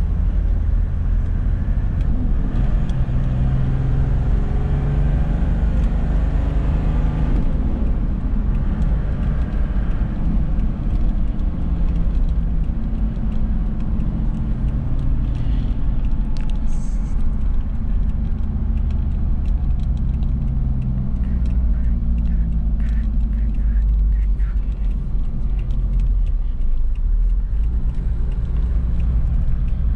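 Toyota Land Cruiser engine and road noise heard from inside the cabin while cruising, a steady low drone.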